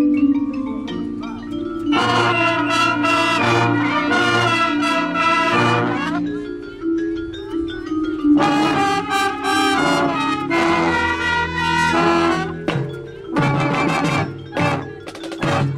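Marching band playing: mallet percussion, then full brass chords coming in loudly about two seconds in and again about eight seconds in, ending with a run of short, punched hits.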